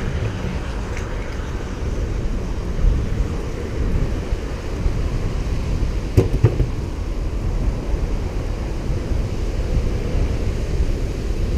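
Steady low rush of wind buffeting the microphone while riding a bicycle, with a couple of sharp knocks about six seconds in.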